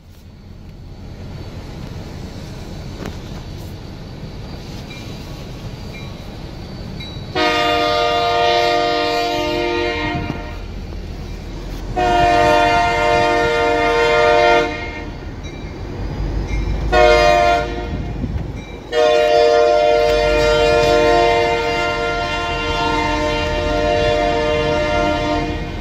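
Union Pacific GP38-2 diesel locomotive's multi-chime air horn sounding the grade-crossing signal: two long blasts, a short one, then a long final blast, over a low steady rumble.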